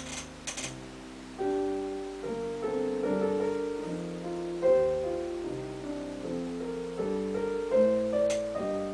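Background piano music, a slow melody over chords. A few short clicks sound about half a second in and again near the end.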